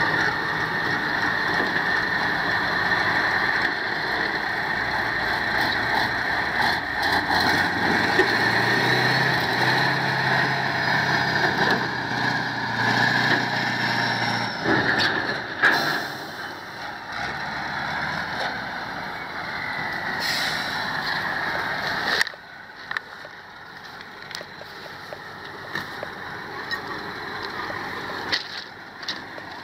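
Heavy diesel army truck engines running hard under load as one truck tows another out of mud. The noise drops sharply about 22 seconds in to a quieter running.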